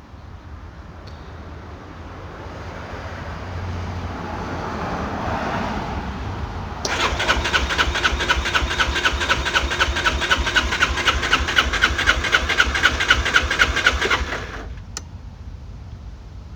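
Piaggio MP3 500 scooter's electric starter cranking its single-cylinder engine for about eight seconds in a fast, even rhythm, without the engine catching, then cutting off abruptly: the scooter won't start. A sharp click follows shortly after.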